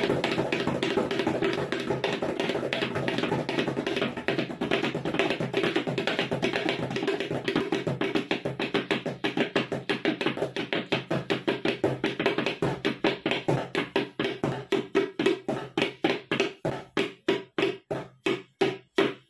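Two tabla pairs played together in a rela meant to evoke a horse's gait: a fast, dense run of strokes over the tuned ring of the dayan. Through the second half the strokes slow down steadily and thin out to single, spaced strokes near the end.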